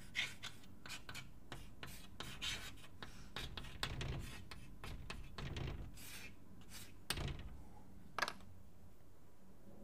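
Hand-writing strokes: irregular scratchy rubbing of a pen or chalk on the writing surface, with two sharper strokes about seven and eight seconds in and a stop shortly before the end.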